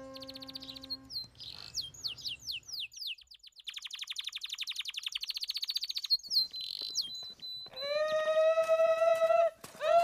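Small birds chirping in quick falling notes and a fast trill, then a louder, lower drawn-out animal call about eight seconds in and a second one at the very end.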